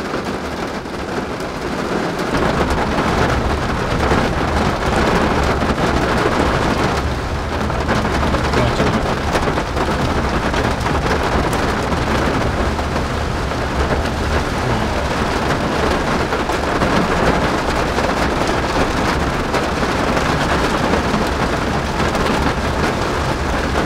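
Heavy rain hitting a car's roof and windshield, heard from inside the cabin as a dense, steady hiss. About two seconds in, a steady low rumble from the moving car on the wet road joins it.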